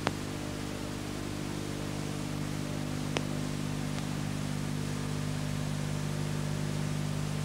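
Steady hiss and low electrical hum from a blank stretch of old videotape, with a sharp click at the start and another about three seconds in.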